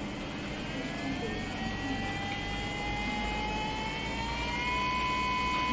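24-volt brushless DC motor spinning up as its accelerator pedal is pressed: its whine rises steadily in pitch for about four seconds, then holds at one steady pitch.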